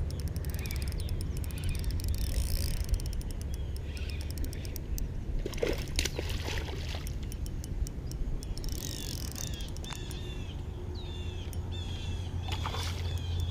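Fishing reel clicking fast while a bass is fought from a kayak, with water sloshing against the boat and a couple of knocks. From about the middle on, a bird chirps a short repeated note about twice a second.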